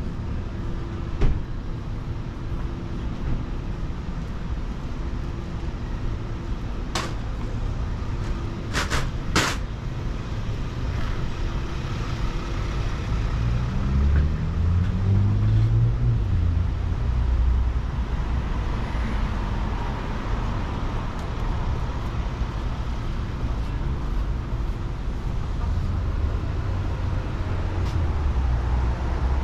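Street traffic rumbling steadily. About halfway through, a vehicle's engine rises in pitch as it speeds up, and a few sharp clicks sound in the first ten seconds.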